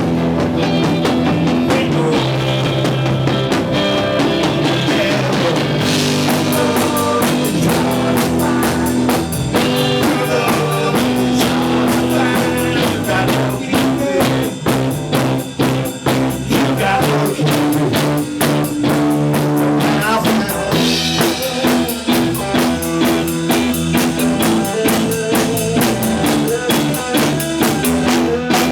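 Blues-rock band playing an instrumental passage on drum kit, guitar and bass, with no vocals. About six seconds in, steady cymbal strokes come in over the drums.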